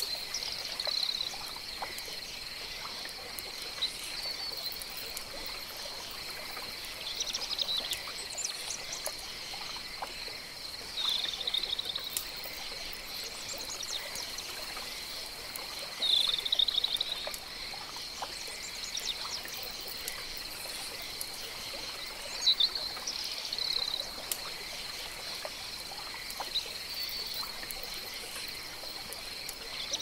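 Jungle pond ambience: a steady high insect drone with short animal calls every four to six seconds over a faint trickle of water. The sharpest calls come at the very start, about two-thirds of the way in, and just after that.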